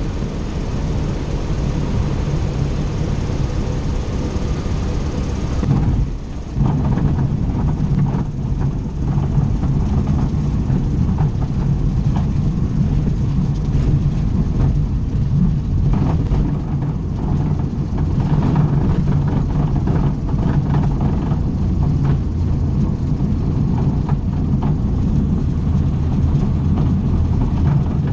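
Cessna 150's four-cylinder Continental O-200 engine and propeller running steadily, with a short dip in level about six seconds in and frequent small knocks and rattles after it.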